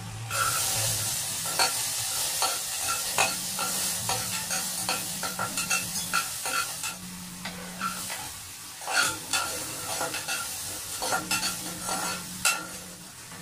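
Chopped tomatoes, onions and garlic sizzling as they are sautéed in a hot stainless-steel pot. The sizzle starts just after the vegetables go in and is dotted with frequent clicks and scrapes of the stirring utensil against the pot.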